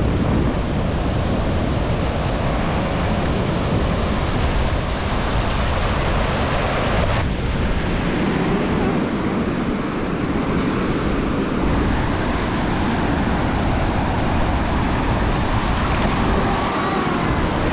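Ocean surf washing onto a beach, with wind buffeting the microphone in a steady low rumble.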